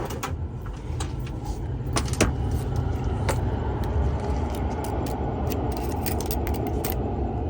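Steady low rumble of a motor vehicle, with scattered light clicks.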